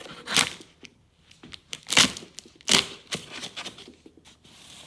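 Cardboard shipping box being worked open: three sharp scraping, crinkling strokes of tape and cardboard, one near the start and two close together about two seconds in, with smaller rustles and clicks between.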